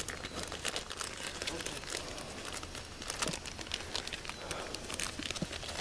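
Plastic bag crinkling and rustling as it is handled close to the microphone: a dense, irregular run of sharp crackles that starts abruptly.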